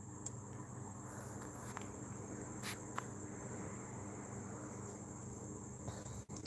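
Crickets trilling steadily in a high, unbroken drone over a low steady hum, with two faint clicks about three seconds in.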